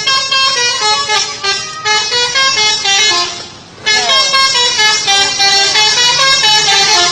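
Bus 'telolet' horn, a multi-tone musical air horn, tooting a quick tune of stepping notes. It breaks off briefly about halfway, then plays a second run of notes.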